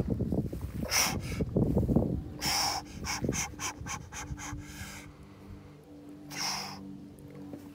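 A man breathing hard from the strain of bench-pressing a heavy log-and-tyre barbell, with sharp, forceful exhales and gasps in quick succession over the first few seconds and one more heavy breath near the end.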